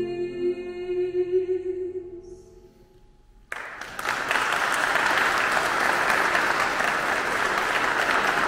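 The song ends on a held final sung note that fades out over the first couple of seconds. Then, about three and a half seconds in, the audience breaks into steady applause.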